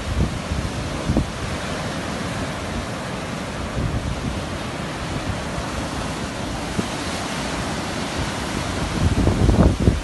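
Ocean surf breaking on a sandy beach, a steady wash, with wind buffeting the microphone in low rumbles that are strongest near the end.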